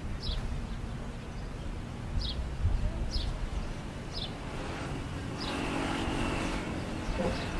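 Roadside traffic rumble, with a vehicle passing about five seconds in, bringing a steady high whine. A bird gives short high falling chirps about once a second throughout.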